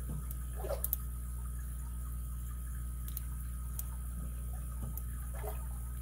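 Lock pick working in a Best padlock's keyway, giving small metallic ticks and scrapes: a quick cluster of clicks about a second in, then single ticks around three and four seconds, over a steady low hum.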